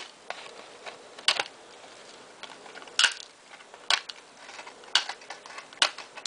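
Wire cutters snipping through chicken wire, a sharp click at each cut, about one snip a second.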